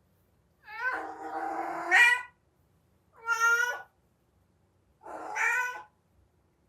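Domestic cat in heat yowling: three drawn-out calls, the first the longest and rising in pitch at its end, the other two shorter.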